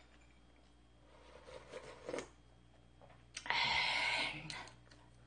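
A person eating ramen: a faint sip of broth, then a louder slurp of noodles and broth lasting about a second past the middle.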